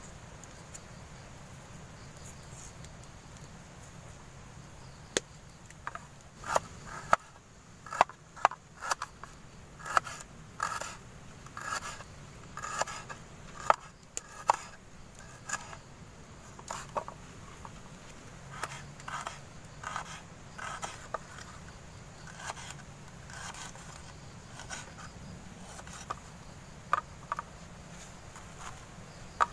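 Knife slicing shallots on a thin wooden board: irregular sharp taps of the blade hitting the wood, starting about five seconds in and going on at roughly one or two a second.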